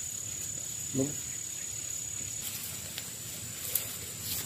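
An insect's steady, high-pitched buzzing call, unbroken throughout. A short voice sound comes about a second in, and there are a couple of faint clicks near the end.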